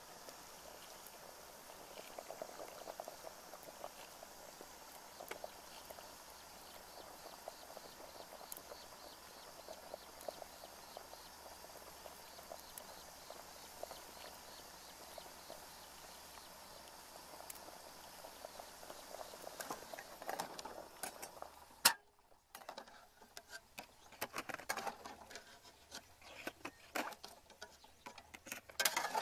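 Water boiling in an aluminium pot of eggs, a steady crackling bubble. About 22 seconds in it cuts off with a sharp click, followed by scattered clicks and knocks of kitchenware being handled.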